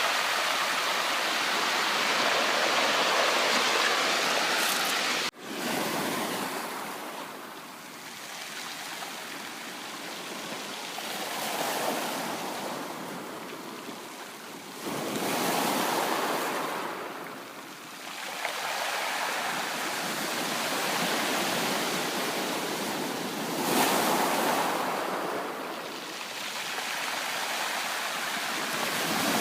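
Sea waves breaking and washing up the shore, the rush of water swelling and fading in slow surges several seconds apart. A brief sudden gap in the sound about five seconds in.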